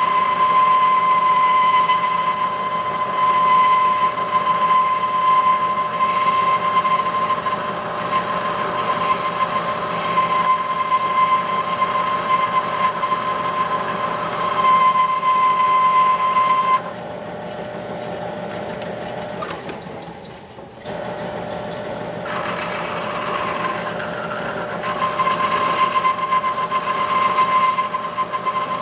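South Bend 10-inch lathe running and cutting a cast-steel governor arm, with a steady high whine while the tool is in the cut. Past the middle the whine stops and the sound drops for several seconds, then it returns near the end.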